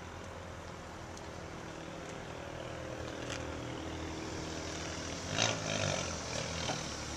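Steady low hum of a vehicle idling. A short, louder sound breaks in about five and a half seconds in, with a smaller one a second later.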